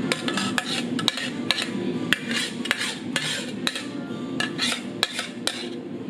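Dishes, cups and metal ware clinking and clattering in irregular, sharp knocks with a short ring, over steady background noise.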